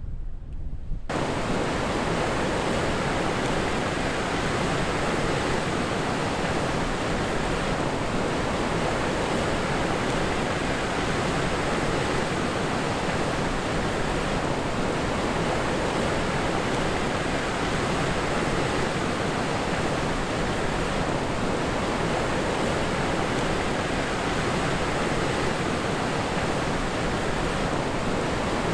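Steady, even rush of a river waterfall. It cuts in abruptly about a second in, replacing a low rumble of wind on the microphone.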